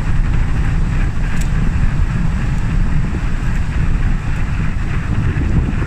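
Heavy wind noise buffeting the microphone of a camera on a bicycle descending a steep hill at speed, a loud, steady low rumble.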